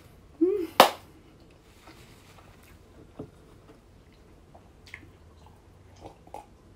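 Small handling sounds. A short hummed 'mm' and a sharp click about a second in, then a few faint knocks as a ceramic mug is lifted and sipped from near the end.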